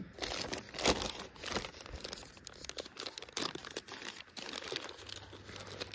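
A thin translucent packaging bag crinkling and rustling as hands handle it and pull it open, in irregular crackles.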